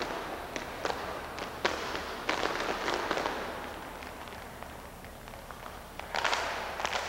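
Sharp clacks and hissing bursts of clapping and shoe stamps from folk dancers on a hard floor, coming in waves: a run of single clacks early, a burst about two seconds in and another about six seconds in.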